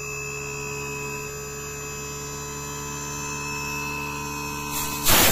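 Inverter-driven rotary air-conditioner compressor running steadily under load, a hum made of several steady tones, running normally with no error code. A short loud burst of noise near the end.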